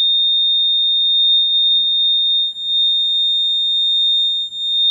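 Piezo buzzer of a homemade rain detector alarm sounding one continuous high-pitched tone, the alarm set off by water on its sensor; the tone cuts out briefly twice, about halfway through and near the end.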